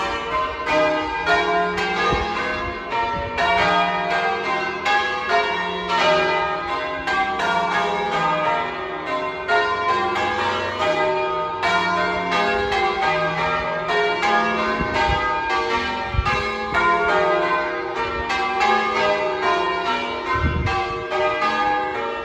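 Church tower bells being change-rung: a continuous, even succession of bell strokes, several a second, each ringing on into the next.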